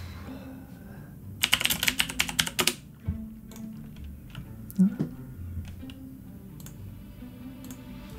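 A quick run of sharp clicks, like typing on a keyboard, lasting about a second, followed by a few single knocks, over steady background music.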